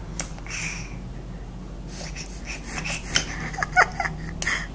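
A toothless baby gumming and sucking on a banana: breathy mouth noises and wet smacks, with a few short high squeaks about three and a half seconds in. A steady low hum runs underneath.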